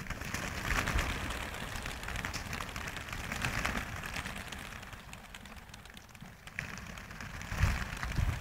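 A flock of homing pigeons taking off together from opened transport crates, their wings making a dense clattering flutter that is strongest in the first few seconds and thins out about five seconds in. A few low thumps come near the end.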